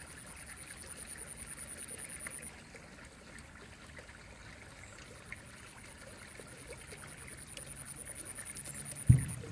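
An insect trilling, a high, rapidly pulsing buzz that runs for the first couple of seconds, stops, and starts again for the second half. Near the end a single low thump is the loudest sound.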